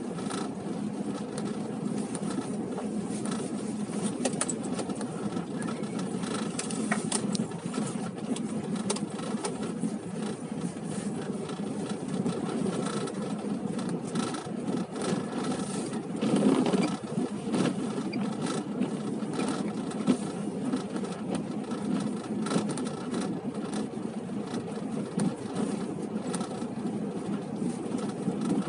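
A car driving, with steady engine and road noise and small rattles and knocks throughout.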